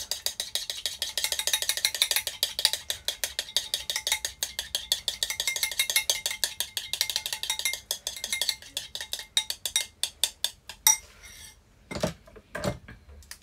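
A utensil clicking quickly and evenly against the sides of a bowl, about nine strokes a second, as something is beaten by hand. The beating stops about eleven seconds in, and a couple of louder knocks come near the end.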